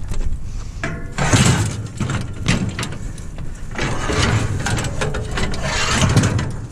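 Aluminum scrap clattering, knocking and scraping as it is handled and loaded. There are many sharp knocks, with a brief metallic ring about a second in.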